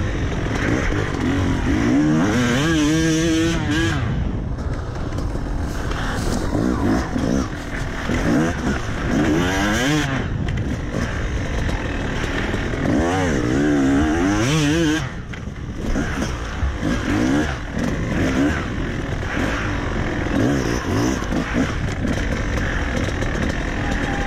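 Enduro motorcycle engine revving up and down again and again as the rider works the throttle along a rough dirt trail, with a brief drop in level at one point.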